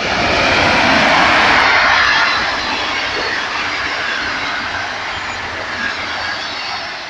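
Electric locomotive hauling a passenger train passing close by: a loud rushing noise swelling as the locomotive goes past in the first couple of seconds, then the steady rolling noise of the coaches' wheels on the track, easing off near the end.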